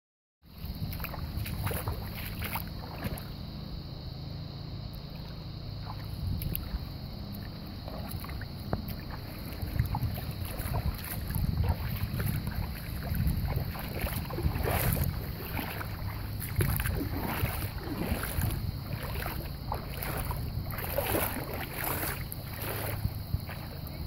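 Golden retriever paddling through shallow sea water, with irregular light splashing and sloshing that grows busier about halfway through, over a steady rumble of wind on the microphone.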